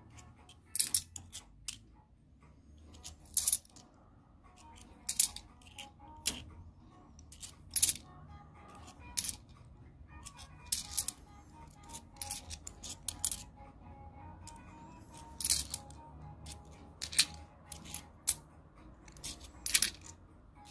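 Stack of bimetallic 2-euro coins clinking against one another as they are slid off one by one in the hand: sharp metallic clicks every second or so, some in quick pairs.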